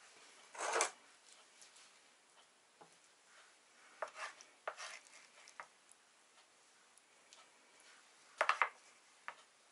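A spatula scraping and scooping casserole out of a metal baking tray and knocking it onto a plate: a few short scrapes and clatters, the loudest about a second in, another cluster around the middle and a quick triple knock near the end.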